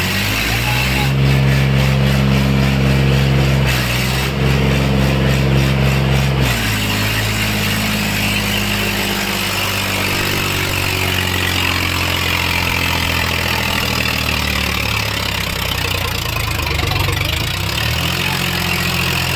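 Eicher tractor's diesel engine revved hard and held high twice, with a short dip between. It then drops back and slowly winds down over about ten seconds, and picks up again near the end.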